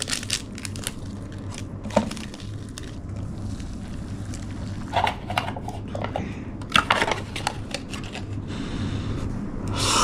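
Crinkling and rustling of foil seasoning sachets and paper cup-noodle cups being handled, with scattered small clicks and scrapes over a low steady hum. It ends in a louder noisy burst as he starts eating the noodles.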